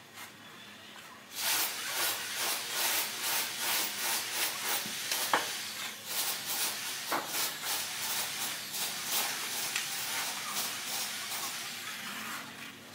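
Notched steel trowel scraping and combing cement mortar across a concrete floor in repeated strokes, starting about a second in.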